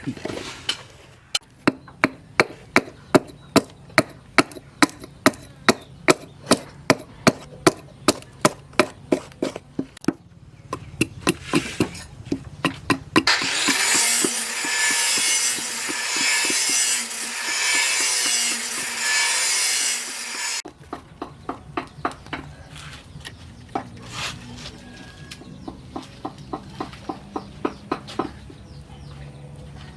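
Hammer blows on the knife blank, evenly spaced at about three a second, for the first ten seconds or so. A loud scraping on the metal follows for about seven seconds in the middle. Lighter, quicker taps run through the last part.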